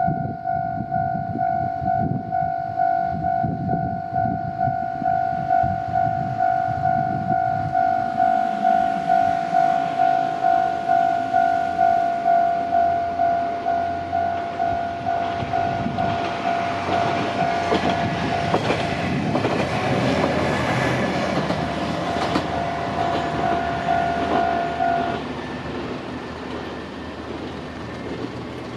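Japanese railroad crossing alarm bell ringing steadily at about two strokes a second as a Nagara River Railway diesel railcar passes, its engine and wheels on the rails growing loud through the middle and then fading. The bell stops near the end.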